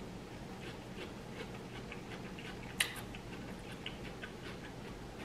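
Close-miked chewing of a mouthful of veggie cheeseburger with raw onion: scattered small mouth clicks, with one sharper click nearly three seconds in.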